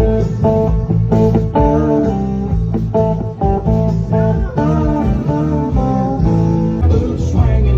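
Blues guitar music: a run of plucked guitar notes, some of them bent in pitch, over a steady low bass part.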